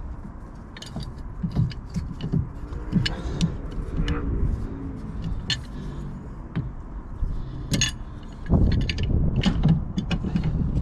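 Metal tools and parts clinking and knocking during hands-on work on a rotary screw compressor, with a louder run of knocks near the end.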